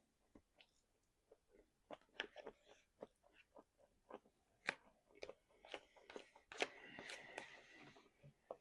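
Close-miked chewing and crunching of food, with irregular wet mouth clicks. A denser, louder stretch of chewing comes about six to eight seconds in.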